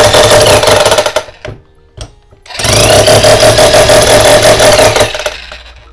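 Bosch 1050 W electric chipping hammer running, its hammer mechanism beating rapidly over the motor, in two runs. The first stops about a second in. The second starts about two and a half seconds in, spins up, and winds down near the end.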